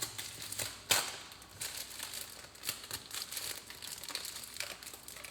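Irregular crinkling and crackling, with a sharp snap about a second in.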